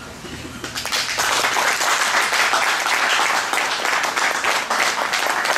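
Guests applauding, the clapping building up about a second in and then holding at an even level.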